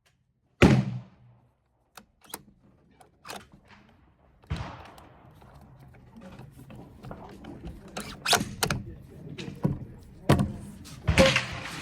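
One loud rifle shot with a ringing tail, followed by a string of sharp clicks, knocks and thuds of the rifle and gear being handled.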